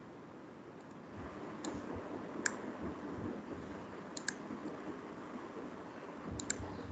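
Computer mouse clicking: a single click about two and a half seconds in, then two quick double clicks, over faint room noise.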